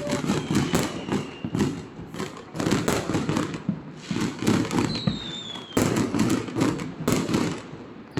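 Fireworks and firecrackers going off over and over, with many bangs in quick, uneven succession and a falling whistle about five seconds in.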